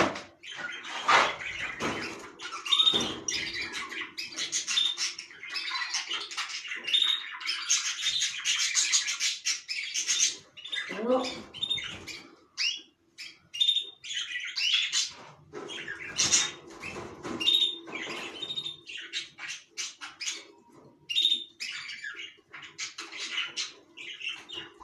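Caged canaries chirping and calling, many short high calls overlapping almost without pause.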